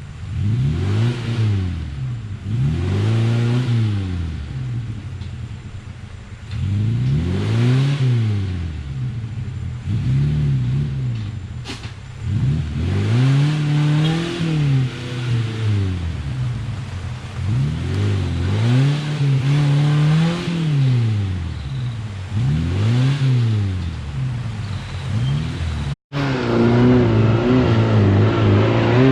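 Off-road vehicle's engine revving up and dropping back again and again, about every two to three seconds, as it works over rough ground. Near the end, after a brief cut, it holds a steadier, higher note.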